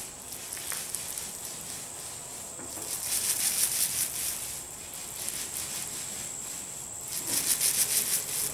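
Paint roller pressed and rolled through wet DuraTex roller-grade texture coating on a speaker cabinet, a sticky wet crackle, with two louder passes about three seconds in and near the end.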